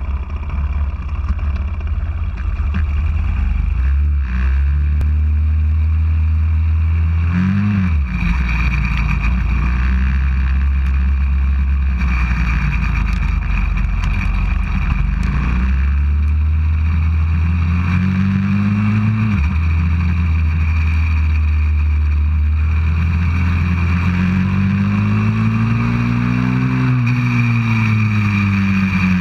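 A 190cc pit bike's single-cylinder four-stroke engine, heard up close from a camera mounted on the bike, running under way. Its pitch climbs and drops a few times as the rider accelerates and eases off.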